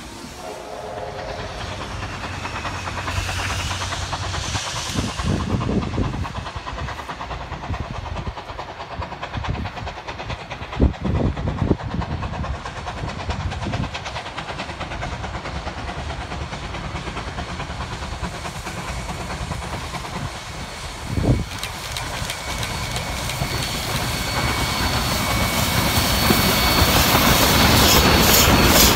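Steam locomotive hauling a heritage passenger train approaching and drawing level, growing steadily louder over the last several seconds, with wheels clicking over the rail joints and a hiss of steam. A few dull thumps come earlier.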